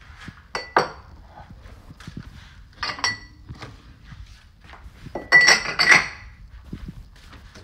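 Drinking glasses clinking against each other and against a cupboard shelf as they are set down: a few separate short, ringing clinks, with the loudest cluster of several clinks about five seconds in.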